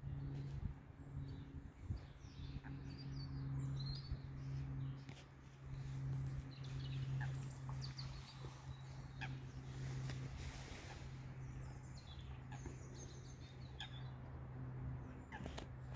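Scattered chirps and calls from a flock of starlings, with a few clicks, over a steady low hum. A brief rush of noise comes about ten seconds in.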